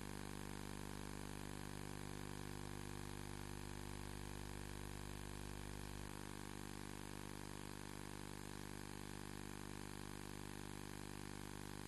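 Steady electrical hum with hiss, a low buzz made of many even tones, dropping slightly in the bass about six seconds in.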